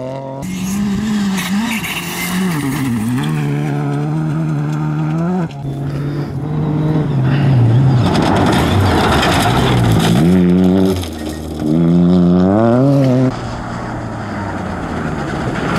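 Rally car engines revving hard and falling back through gear changes as the cars pass on loose gravel, with a gritty crunch and spray of stones under the tyres; the sound jumps abruptly between different cars a few times.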